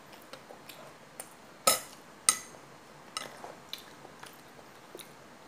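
Clinking and knocking against a bowl while eating soup: a string of sharp clinks, the two loudest close together about two seconds in, each ringing briefly.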